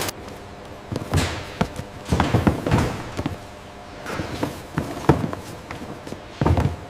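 A series of irregular thumps and knocks, some in quick clusters, with a sharper knock about five seconds in.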